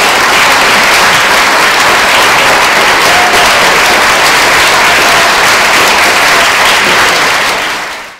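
Theatre audience applauding, a steady clapping from a seated crowd that fades out near the end.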